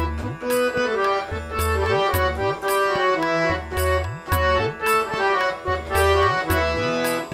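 Harmonium playing an instrumental melody with tabla accompaniment. Crisp dayan strokes keep time, and deep bayan strokes swoop up and down in pitch.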